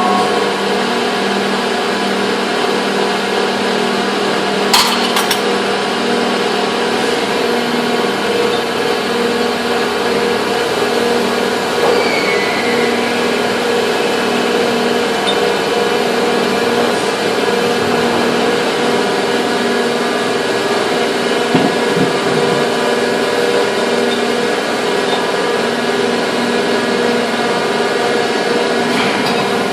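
Factory molding machinery running steadily, a dense drone made of several steady hums and whines. A sharp knock comes about five seconds in, and a fainter one about two-thirds of the way through.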